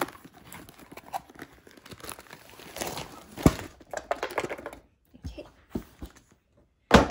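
Rustling and knocking as a long cardboard box is handled and a plastic-wrapped rolled canvas is slid out and set down, with a sharp knock about halfway through and a louder thump near the end.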